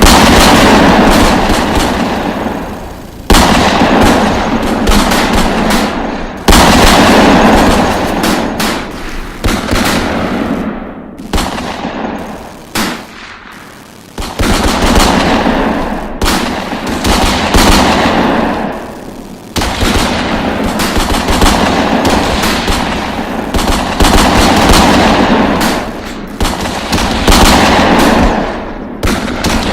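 Heavy gunfire sound effects: long bursts of rapid automatic fire lasting several seconds each, with short breaks between them and a quieter lull of a few seconds near the middle.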